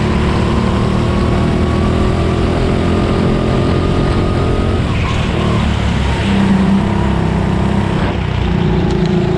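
Rental go-kart engine heard from the driver's seat at racing speed. Its pitch climbs slowly for the first few seconds, drops sharply about five seconds in as the throttle comes off for a corner, and picks up again near the end.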